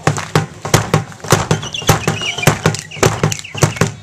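Zulu dance: a drum beaten in a steady pattern of sharp strokes, about three to four a second, together with the dancers' stamping feet.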